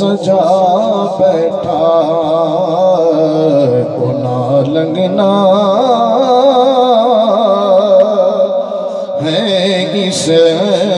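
A man singing a devotional naat into a microphone, amplified through a PA system, in long held, ornamented lines with a wavering vibrato. A thin steady high-pitched ring runs underneath.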